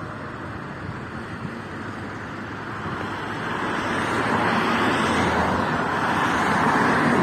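Road traffic noise: a car approaching on the street, its tyre and engine noise swelling from about three seconds in and staying loud near the end.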